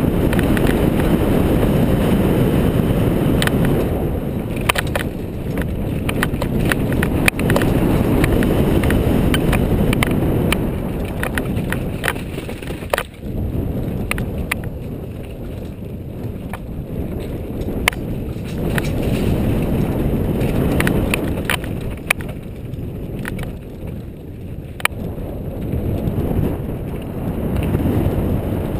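Mountain bike descending a rough dirt and gravel trail at speed: wind buffeting the microphone with the rush of tyres over dirt, swelling and easing with speed. Sharp clicks and knocks from the bike rattling over bumps and rocks now and then.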